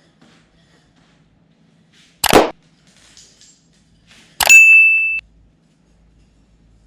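Two sharp metallic knocks. The second is a clang that rings with one steady high tone for under a second, then stops abruptly.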